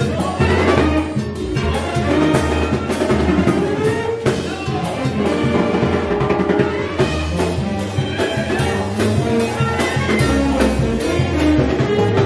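A live brass band playing: horns and a tuba over a drum kit, with a steady beat.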